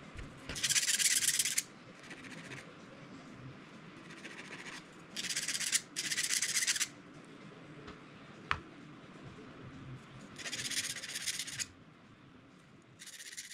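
Needle file rasping on a small hand-held metal bracket, in five short bouts of strokes with pauses between. A single sharp click about halfway through.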